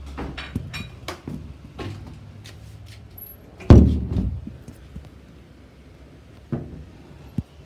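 A run of knocks and clicks, with one heavy thump a little before four seconds in and two sharper knocks near the end.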